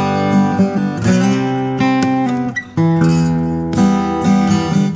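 Background instrumental music: strummed acoustic guitar chords that change about once a second.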